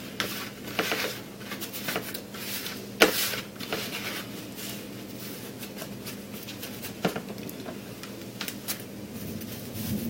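Rustling and scraping with scattered clicks and knocks as Maya dust (resin-rich fatwood shavings) is handled and packed into a cardboard toilet-paper-roll tube, with a sharp knock about three seconds in and another about seven seconds in. A faint steady hum lies underneath.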